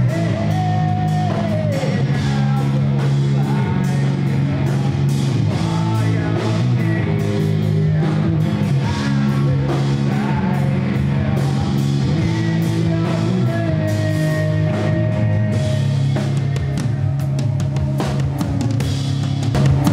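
A live rock band playing loudly: electric bass and guitar holding a thick, sustained low sound while a drum kit keeps a steady beat of cymbal and drum hits.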